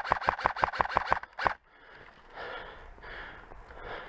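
Airsoft electric rifle, a tan Elite Force Beretta ARX-160, firing full-auto at about eight shots a second, then one last shot about a second and a half in. After it come a few soft rustling sounds.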